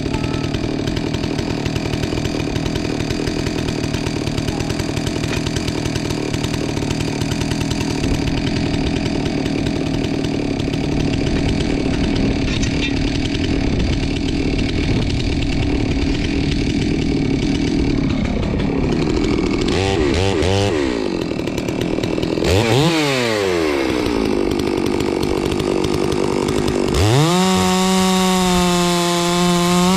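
Chainsaw cutting through a log, the engine running steadily under load, then revving up and down several times in the last third before holding a steady high speed.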